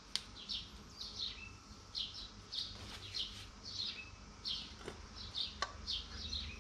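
A bird chirping, with short high calls repeated about twice a second. A few sharp clicks stand out, one just after the start and two near the end.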